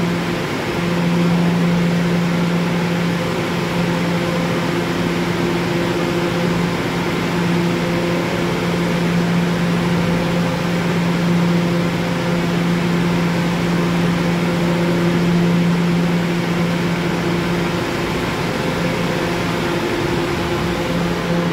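Steady electrical hum of an R211 subway train standing at the platform, its onboard equipment running, over a broad station noise. The hum drops out briefly about half a second in and fades for a couple of seconds near the end.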